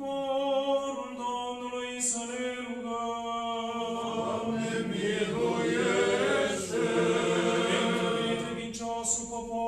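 Orthodox liturgical chant sung a cappella by voices in a small room: a single held note at first, then several voices join about four seconds in with overlapping lines, settling back to a held note near the end.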